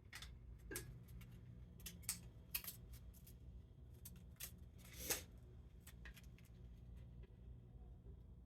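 Faint scattered clicks and rustles of small parts being handled at a workbench, the loudest about five seconds in, over a low steady hum.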